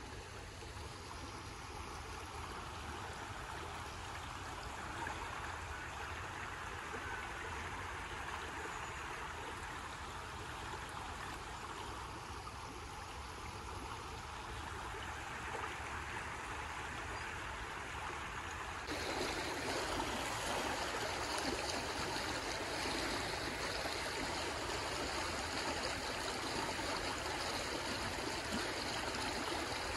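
Shallow river rushing steadily over stones and gravel, a continuous rippling wash of water that becomes suddenly louder about two-thirds of the way through.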